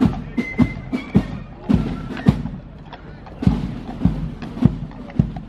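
Military band music with heavy thuds keeping a steady march beat, about two a second.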